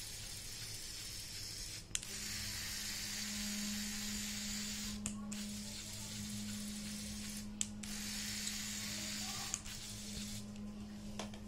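Single Lego electric motor and its small gear train running steadily with a low hum, driving all six wheels of a Lego multi-axle model, with a few sharp clicks.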